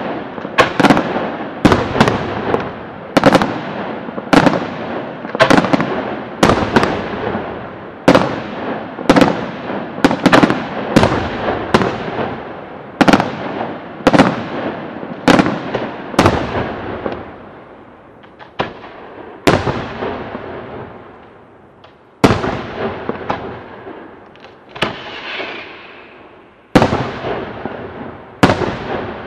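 Aerial firework shells bursting in quick succession: sharp bangs about one or two a second, each with an echoing tail. Past the middle the bangs thin out to a few spaced ones, with a brief crackle near the end.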